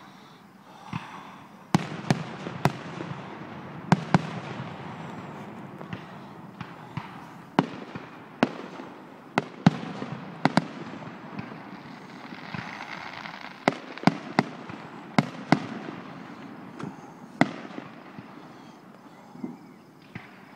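Aerial fireworks shells bursting: well over a dozen sharp bangs at irregular intervals, some loud and some fainter, over a steady background hiss.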